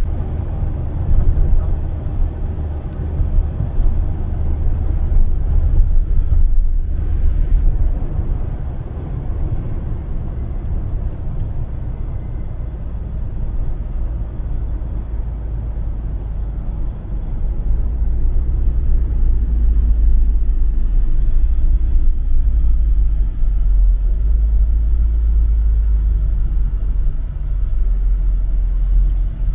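A van driving on the road: a steady low rumble of engine and tyres, a little louder in the second half.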